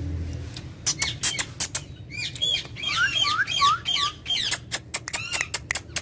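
Indian ringneck parrot (rose-ringed parakeet) calling: a few short, sharp squawks about a second in, then a rapid run of rising-and-falling chirps.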